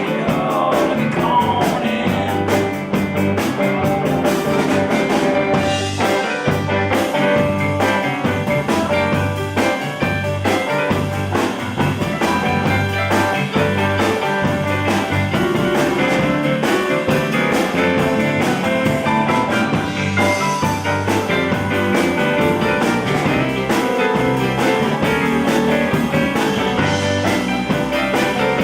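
Live blues band playing an instrumental passage over a steady, repeating bass line.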